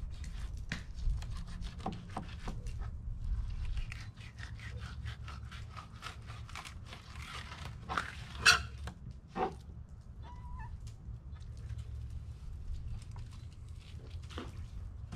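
Fillet knife cutting and scraping along a sheepshead fillet on a plastic cleaning board: a quick run of short scraping strokes, with a sharp knock about eight and a half seconds in.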